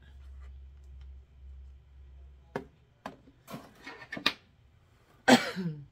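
Hands fiddling with a small eyeshadow palette compact, a few clicks and scrapes as it is pried at without opening: it is taped shut. A short loud burst comes near the end.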